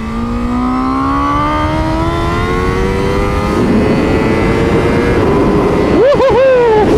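Honda Fireblade SP's inline-four engine accelerating hard, its pitch climbing steadily for about five seconds, then two quick dips and recoveries about six seconds in, like rapid upshifts, before the revs fall near the end. Heavy wind rush on the onboard microphone underneath.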